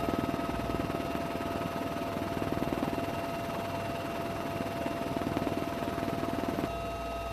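Helicopter running: a fast, even rotor chop under a steady turbine whine. The sound changes abruptly near the end.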